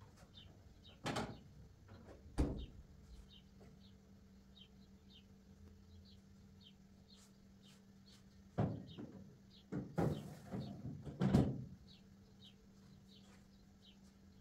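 Kitchen clatter: cupboard doors and dishes being handled, heard as a few separate knocks and then a busier run of knocks and bangs near the end. Faint high chirps repeat about twice a second in the background throughout.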